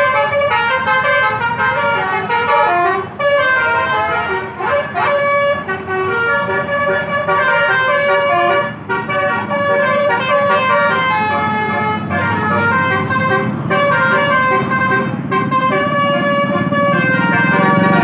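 Basuri telolet bus horns, multi-tone musical air horns, playing a melody of short stepping notes with a few brief breaks.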